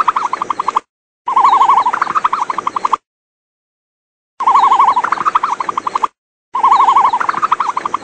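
Recorded animal call played as the ostrich's call, sounding four times in two matching pairs. Each call lasts about a second and a half: a quavering, warbling tone that steps up in pitch partway through.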